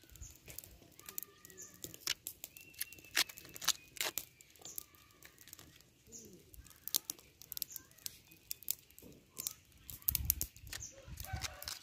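A banana blossom being peeled and torn apart by hand: a run of irregular crisp snaps and tearing sounds as the bracts and pale heart are pulled into strips.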